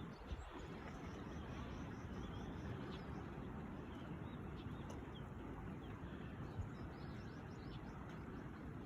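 Steady wind and outdoor noise with a small bird giving runs of rapid, high chirps, one about a second in and another near the end.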